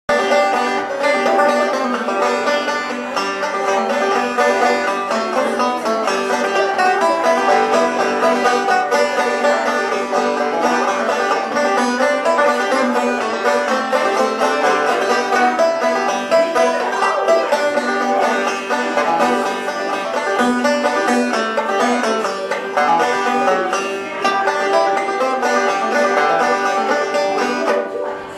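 Solo banjo played as a quick, continuous run of plucked notes in a bluegrass style; the tune stops just before the end.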